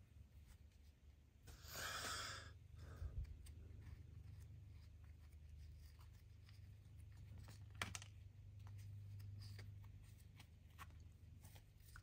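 Faint handling of a stack of trading cards: cards sliding and flicking against each other, with a louder rustle about two seconds in and a sharp tap near eight seconds, over a low steady hum.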